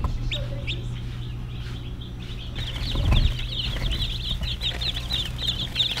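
Newly hatched chicks peeping: a few scattered high peeps at first, then from about halfway in a dense, rapid chorus of short peeps from the whole brood. A steady low hum runs underneath, with a brief low thump about three seconds in.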